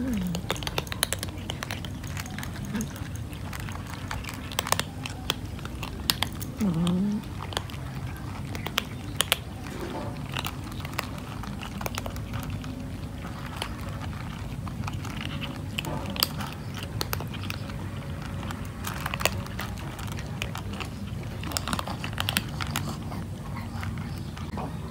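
Several cats crunching dry kibble from a metal tray: a steady run of small crisp crunches and clicks. About seven seconds in there is one short, low, hum-like voice sound.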